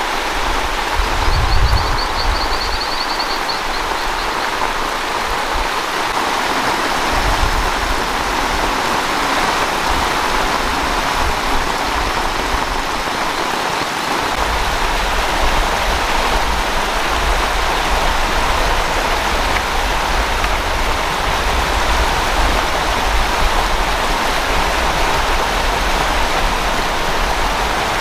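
Steady rain with water running over the ground: a continuous even hiss. A faint high trill sounds briefly in the first few seconds.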